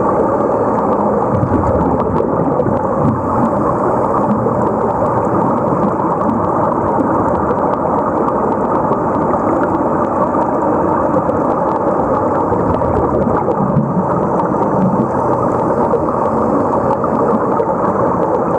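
Steady, muffled rush and crackle of air bubbles underwater, heard through a camera's waterproof housing below the surface.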